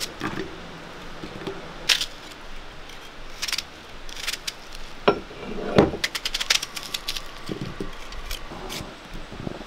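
Irregular taps, clicks and scrapes of hands preparing vegetables, with a quick run of small clicks about six seconds in.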